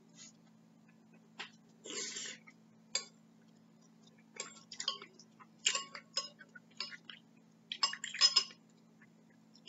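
Metal spoon clinking and scraping against a ceramic soup bowl in irregular bursts, the loudest near the end, with the mouth sounds of eating between them. A low steady hum lies underneath.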